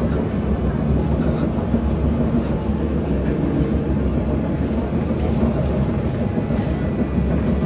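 Jerusalem Light Rail tram running, heard from inside the car as a steady low rumble.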